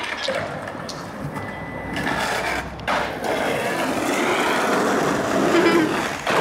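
Skateboard wheels rolling over rough asphalt: a steady rolling noise that grows louder about two seconds in.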